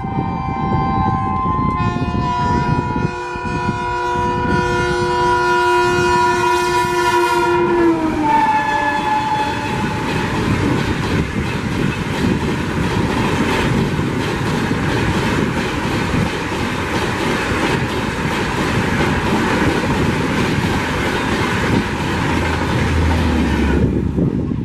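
WAP7 electric locomotive passing at about 130 km/h with its multi-tone horn blaring; the horn's pitch drops about eight seconds in as the locomotive goes by. The coaches then rush past with a fast clickety-clack of wheels over the rails, which stops sharply near the end as the last coach clears.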